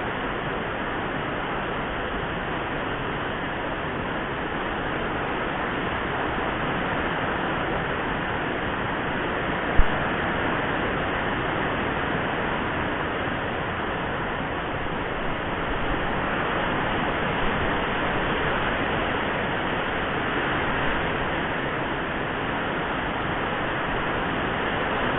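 Typhoon rain and wind making a steady rushing noise, with one sharp knock about ten seconds in.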